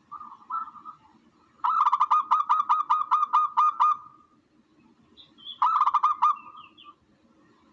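Recorded bird call played as a hunting lure, sold as a tukmo (dove) call. It gives a fast run of about ten repeated notes lasting a couple of seconds, then a shorter run of about four notes, with faint high chirps in between.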